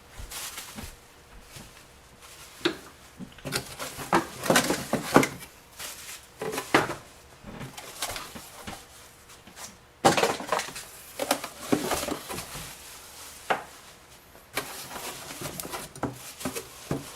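Packing material and gun-vise parts being handled and pulled from their shipping box: rustling with scattered knocks and clatter.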